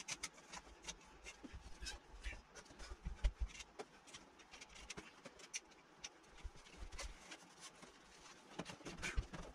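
Faint scattered clicks, light knocks and plastic rustling as a mini-split indoor unit is lifted and hung on its wall mounting plate. A few duller thumps come about three seconds in, around seven seconds, and near the end.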